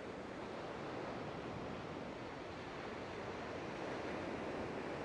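Surf washing on a shingle beach: a steady, even wash of waves with slight swells.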